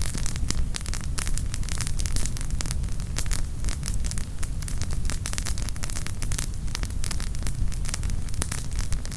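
Wood campfire burning, the firewood crackling with many irregular sharp pops over a steady low rumble.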